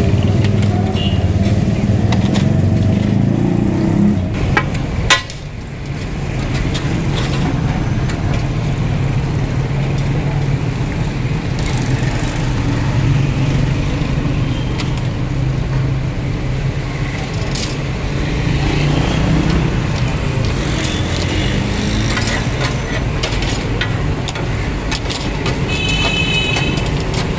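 Steady motor hum over outdoor street noise, with a sharp click about five seconds in and a short high ringing tone near the end.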